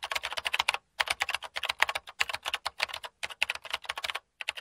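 Rapid computer keyboard typing in runs of about a second each, broken by short pauses about one, two, three and four seconds in.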